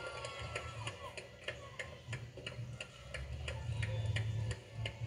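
Table tennis balls ticking off bats and tables, a quick irregular run of sharp clicks, about three or four a second, from rallies at several tables at once, over a low hum.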